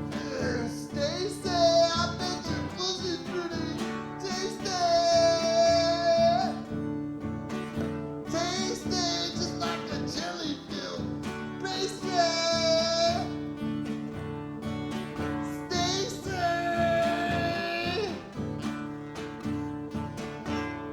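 A song with strummed acoustic guitar accompaniment and a high singing voice. The voice holds long, wavering high notes several times.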